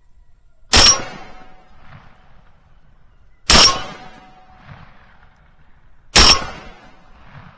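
Three loud metallic clangs, evenly spaced about two and a half seconds apart, each ringing briefly after the strike.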